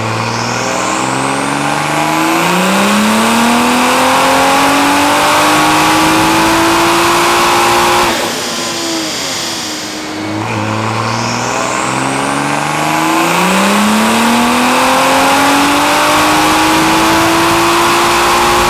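Toyota Supra's B58 turbocharged inline-six with a Remnant turbo kit, making two full-throttle dyno pulls. Each pull climbs steadily in pitch for about eight seconds, then the revs fall away sharply when the throttle closes. A high whine climbs at the start of each pull, and the engine sound is insane.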